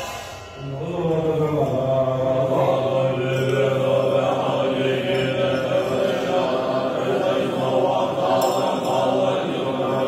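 Tibetan Buddhist monks chanting together in unison, a low, steady drone that sets in about a second in after a brief pause.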